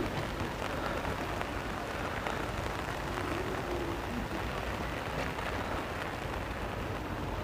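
Steady hiss of light rain falling on wet ground.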